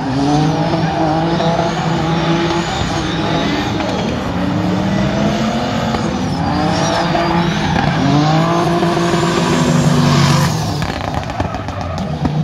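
Drift cars sliding at speed: engines revving up and down at high revs and tyres squealing in a high, wavering pitch. The sound swells to its loudest about ten seconds in, then drops away.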